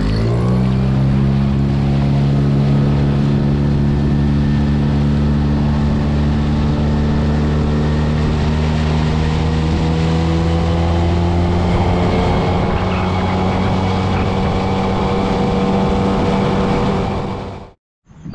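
Suzuki outboard motor opened up to speed: its pitch jumps at the start, then climbs slowly and holds at high revs as the boat planes. It stops abruptly near the end.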